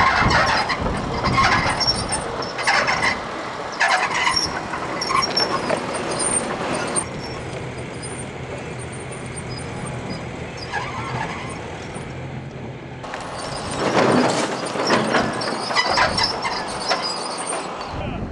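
Komatsu PC400LC hydraulic excavator demolishing a brick storefront: repeated crashes as its bucket strikes the wall, over the steady running of its diesel engine.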